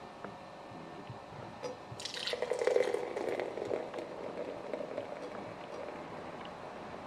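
Beer poured from a can into a stemmed wine glass. The stream starts splashing about two seconds in and is loudest at first, then runs on more softly as the foamy head rises.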